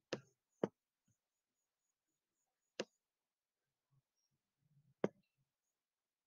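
Four sharp computer mouse clicks, two close together at the start, one near the middle and one about five seconds in, over faint room tone.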